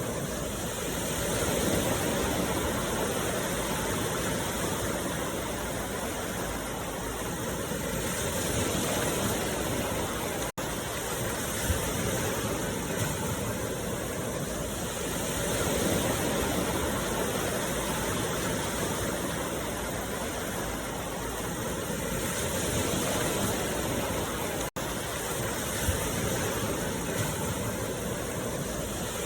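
A steady rushing noise that swells and eases slowly every several seconds, with two split-second dropouts, one about a third of the way in and one near the end.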